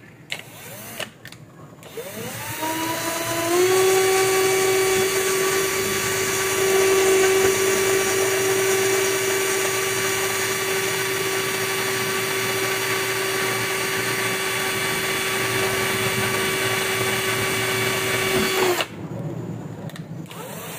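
Cordless drill boring a hole in a small piece: the motor winds up over a couple of seconds, runs at a steady whine for about fifteen seconds, then stops suddenly. A few light clicks come before it starts.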